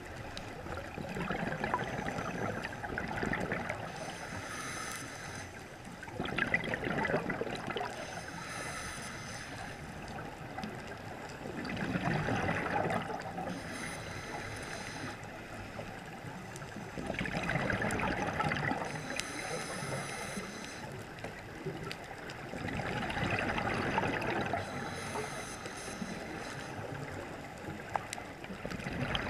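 Scuba diver breathing through a regulator, heard underwater: a short hissing inhale followed by a longer burble of exhaled bubbles, repeating about every five to six seconds.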